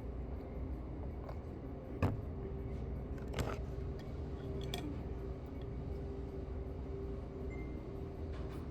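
Steady low hum of restaurant room noise, with a couple of sharp clinks of eating utensils against a bowl about two and three and a half seconds in.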